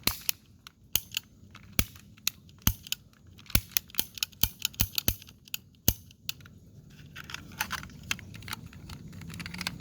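Two toy ring-cap guns clicked in turn as their triggers are pulled, with sharp snaps about once a second for the first six seconds and then lighter clicks. The caps mostly fail to go off: the guns are jamming and misfiring.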